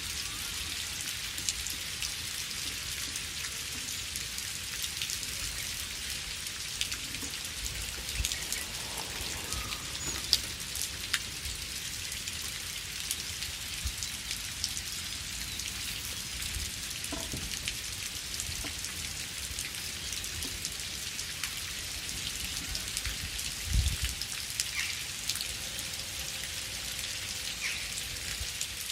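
Steady rain falling: a dense, even hiss of drops with scattered louder single drops clicking through it, and a dull low thud about three-quarters of the way in.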